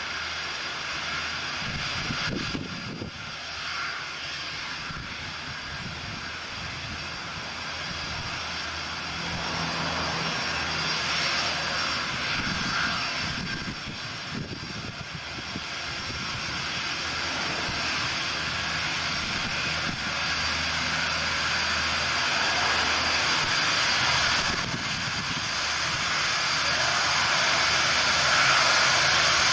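Boeing 747 freighter's jet engines running at taxi power: a steady high whine over engine rush, growing louder as the jumbo turns toward the microphone.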